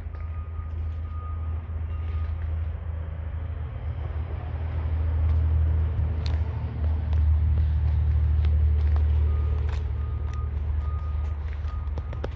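Low rumble of a running vehicle, louder in the middle, with a faint high beep repeating near the start and again near the end.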